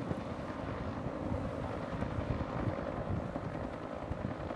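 Bell UH-1 Huey helicopter flying past, its two-blade main rotor giving a steady, rapid chop.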